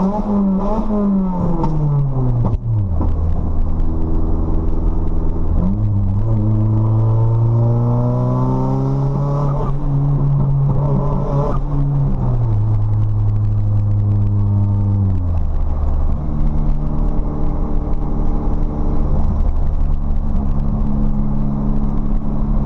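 Nissan SR20DET turbocharged four-cylinder through a 3-inch straight-pipe exhaust while driving: the engine note falls at first, climbs with the revs for several seconds, then drops back in two steps and holds lower. The engine is breaking up, which the owner puts down to spark plugs gapped too small and carbon-fouled from running rich.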